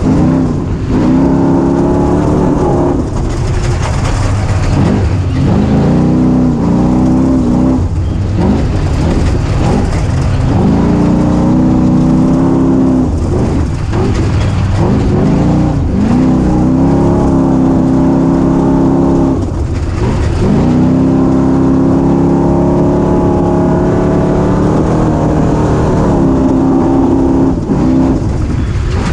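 Small 250 cc engine of a ridden vehicle, heard from an onboard camera, revving up and easing off over and over. Its pitch climbs and holds for several seconds at a time, with short drops between, the longest held stretches coming about halfway through and again near the end.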